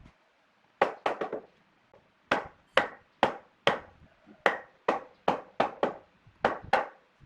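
A tool striking wood again and again, about fourteen sharp blows. A quick burst of four comes about a second in, then the blows come roughly two a second.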